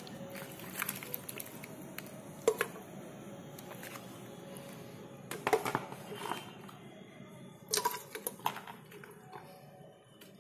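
Pieces of goat meat and leg bone dropped and pushed by hand into an aluminium pressure cooker: a series of sharp knocks and clatters against the pot, the loudest about two and a half and five and a half seconds in, over a steady low background.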